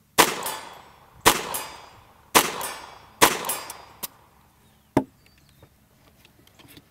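Ruger 22 Charger .22 LR pistol firing four shots about a second apart, each a sharp crack with a short ringing tail, followed by two short, lighter clicks as the magazine is finished.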